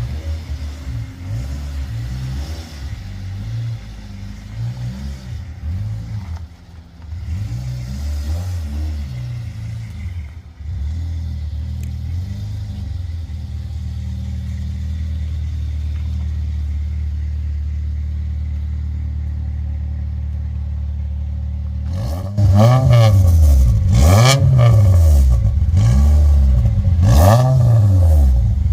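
Toyota Celica GT-S's freshly rebuilt 2ZZ-GE 1.8-litre four-cylinder engine running, its pitch rising and falling a little at first, then holding steady. About 22 seconds in it gets louder and is revved up and down several times in quick succession.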